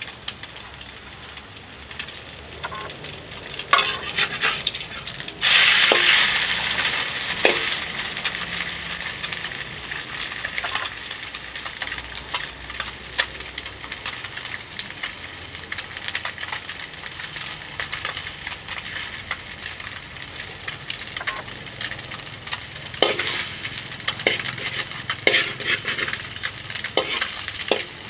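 An egg frying in hot oil in a pan. The sizzle flares up suddenly about five seconds in, as food meets the hot oil, then settles into steady frying. A utensil clicks and scrapes against the pan now and then.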